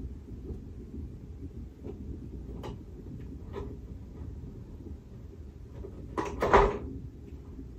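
Cardboard packaging being handled: a few light taps and clicks, then a short, louder scrape of cardboard sliding about six seconds in.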